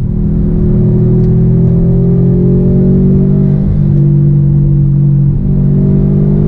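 Subaru turbocharged flat-four engine heard from inside the cabin while driving, its note climbing slowly in pitch, then stepping down about four seconds in and shifting again near the end.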